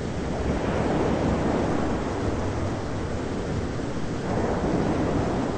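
Thunderstorm ambience: a steady hiss with a low rumble that swells twice, about a second in and again near the end.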